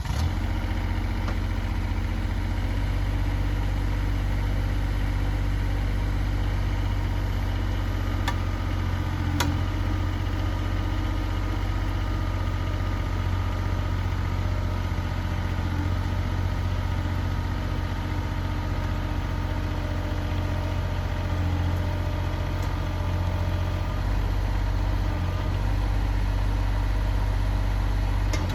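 Engine of the grapple machine running steadily at an even low pitch as it pushes a large log toward the sawmill, with a couple of faint clicks about eight and nine seconds in.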